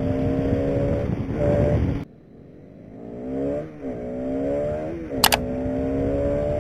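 Motorcycle engine accelerating up through the gears, its pitch climbing steadily and dipping at each shift, over steady wind hiss. About two seconds in the sound drops away for about a second, then the engine climbs again, and there is a sharp click a little after five seconds.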